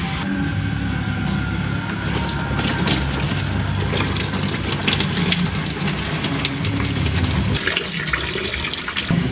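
Fluid draining from the truck through a long-neck funnel and hose into a drain pan: a splashing, trickling pour that gets stronger about two seconds in and eases shortly before the end.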